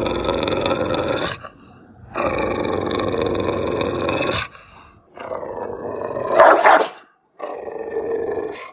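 Angry dog growling in long, sustained growls broken by short pauses: a growl of about a second and a half, another of about two seconds, then a third that swells into a louder snarl about six and a half seconds in, and a short last growl that stops near the end.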